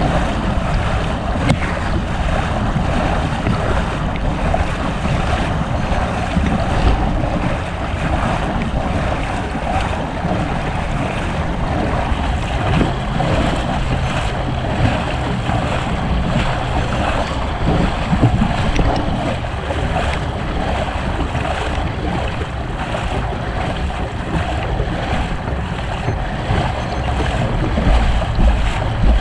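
A bicycle moving through deep flood water, heard close to the surface: the water churns and splashes around the frame and wheels as a steady rush with a few louder splashes, with wind buffeting the microphone.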